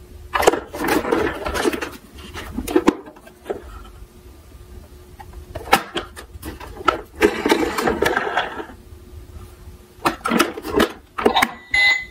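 Plastic toy ambulance handled and turned over in a cardboard box: several bursts of rubbing, scraping and clicking of plastic against cardboard. Near the very end its electronic siren briefly sounds again as its lights come on.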